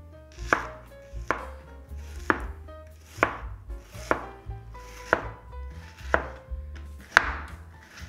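Knife chopping through food onto a cutting board, with evenly paced cuts about once a second, over background music.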